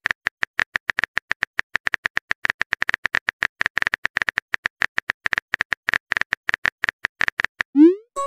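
Rapid keyboard-tap clicks of simulated phone typing, about eight a second, followed near the end by a short rising bloop as the message is sent.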